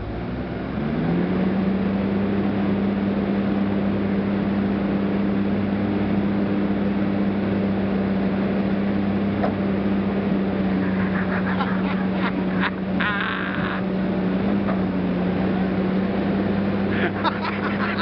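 Komatsu wheeled excavator's diesel engine revving up about a second in, then running steadily at high working speed under hydraulic load as the bucket pulls.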